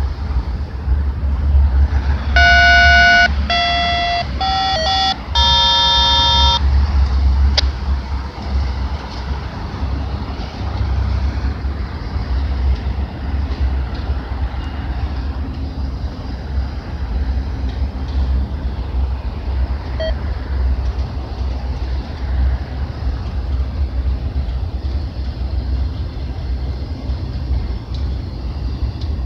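Freight train of autorack cars rolling over a steel girder bridge with a steady low rumble. About two seconds in, a horn sounds four blasts over about four seconds, the last one the longest.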